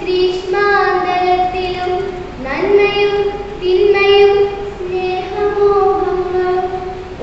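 A girl chanting a Malayalam poem to a sung melody, unaccompanied, in long held notes that glide between pitches, with a short breath pause about two and a half seconds in.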